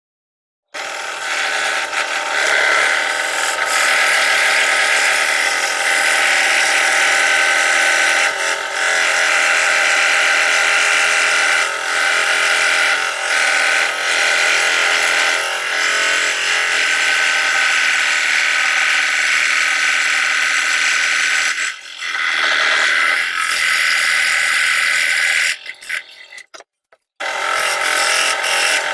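Scroll saw running steadily as it cuts plywood, a continuous buzz that stops briefly near the end and starts again.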